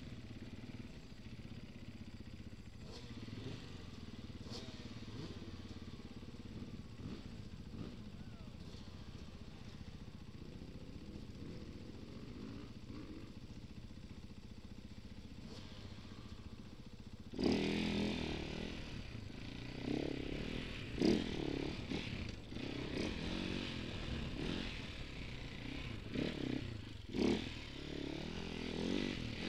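Enduro motorcycle engine running low and steady, then about seventeen seconds in revving hard as the bike pulls away, the revs rising and falling with sharp peaks as it rides along a dirt trail.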